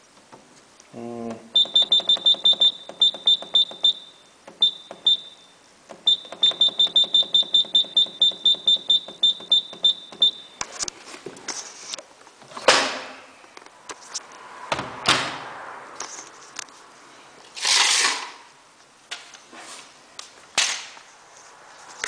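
Washing machine control panel beeping rapidly, a short high beep about four to five times a second in several runs, as the program is set. From about halfway through, the beeping stops and there are irregular knocks and rustles.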